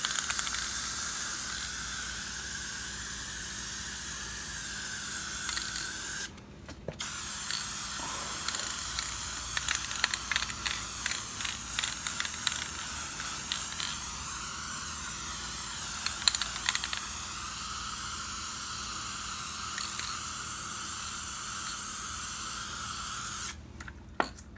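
Aerosol spray paint can spraying in two long steady hisses, with a pause of under two seconds about six seconds in and a few light ticks during the second. It stops shortly before the end.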